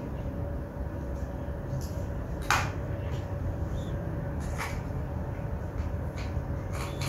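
A white plastic toy bubble gun being handled and fitted together: scattered light plastic clicks, with one sharper, louder click about two and a half seconds in, over a steady background hum.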